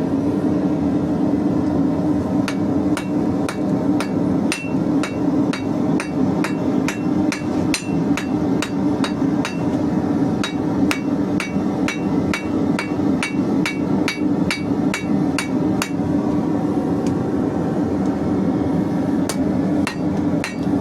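Hand hammer striking hot square steel bar, about two blows a second, each with a short ring, stopping for a few seconds near the end and then starting again. A steady low hum runs underneath.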